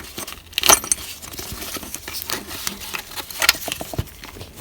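Hands working plastic trim parts and a wiring harness: scattered clicks and rustling, with two louder clicks, one near the start and one about three and a half seconds in.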